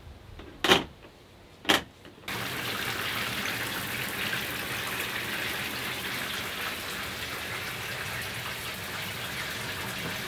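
Two sharp knocks within the first two seconds, then water starts abruptly and runs steadily from an overhead rain shower head, an even hiss of falling spray.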